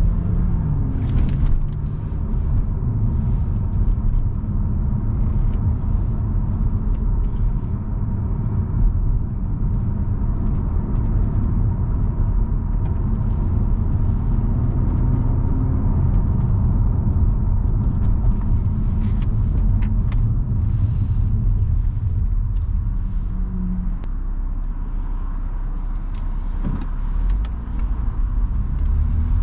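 BMW 340i's turbocharged B58 straight-six, decatted and Stage 2+ tuned, running steadily under way in Sport mode. The engine note rises near the start and again near the end as it accelerates, with a few sharp pops scattered through.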